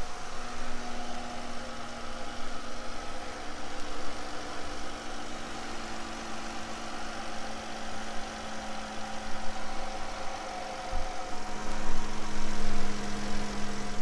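A 2017 Ram ProMaster's 3.6L Pentastar V6 idling steadily, heard through the open engine bay. It gets louder for the last few seconds.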